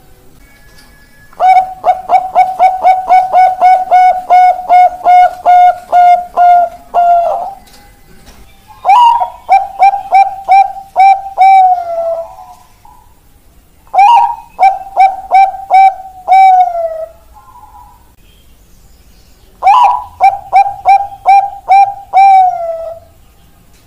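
Zebra doves (perkutut bangkok) singing: four phrases of rapid, evenly spaced low coos, about three a second. The first phrase runs about six seconds, and the three shorter phrases that follow each open with a higher rising note and end in a drawn-out falling note.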